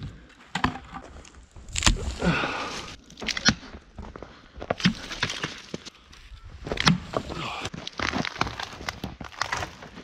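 Boots crunching through snow and pushing through brush, with dry twigs and branches snapping in irregular sharp cracks. Near the end a small dead tree is grabbed and pulled for firewood.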